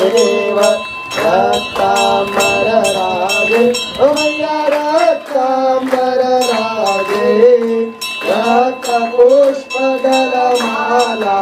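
Devotional song: a singing voice over a steady beat of jingling percussion.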